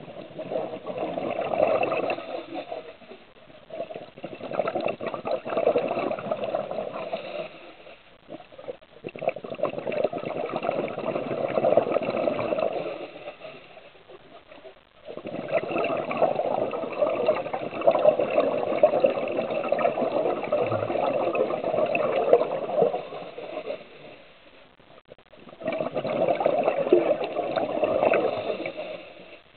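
Scuba diver breathing through a regulator, heard underwater: long bubbling exhalations of several seconds each, about five of them, with short quieter pauses between breaths.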